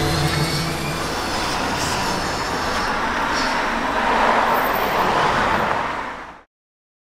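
Steady street traffic noise, an even rush with no clear tones, swelling slightly about four seconds in and fading out to silence near the end.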